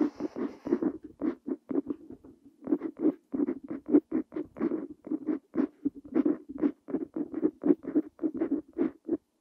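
Parker Jotter fountain pen nib scratching across paper in quick, short strokes, one after another, with a brief pause about two seconds in.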